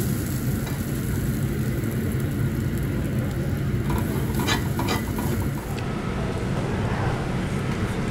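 Garlic shrimp sizzling on a tabletop grill over a steady low rumble, with a couple of sharp clicks of metal tongs setting shrimp onto a plate about four and a half seconds in. About six seconds in the sizzle cuts off, leaving the low rumble.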